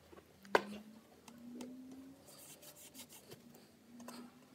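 Thumb and fingers rubbing along the edge of a glued-on cabinet skin panel, with a sharp click about half a second in and scratchy rubbing a couple of seconds later.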